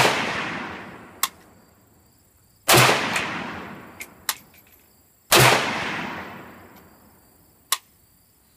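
AK-47 rifle in 7.62×39 firing three shots about two and a half seconds apart, the first right at the start. Each shot is followed by a long echo that dies away over about two seconds. A few faint sharp clicks fall between the shots.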